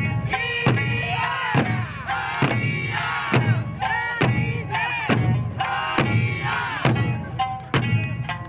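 Okinawan Eisa music: drums struck in a steady beat, about one stroke a second, under sung folk melody.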